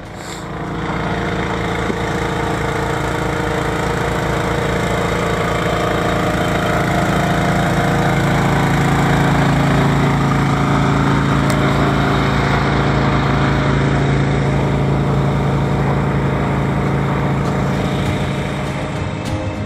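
Engine-driven generator running steadily with an even, low hum. It swells over the first couple of seconds, is loudest around the middle and eases off slightly toward the end.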